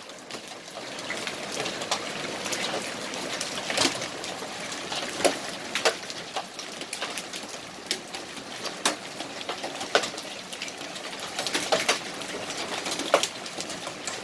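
Large, quarter-sized hailstones pelting down: a steady hiss of falling hail and rain, with sharp cracks as single stones strike at irregular moments.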